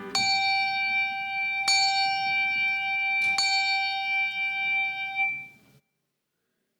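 A bell or chime struck four times on the same note, the last two strikes in quick succession, each left ringing; the sound cuts off suddenly near the end.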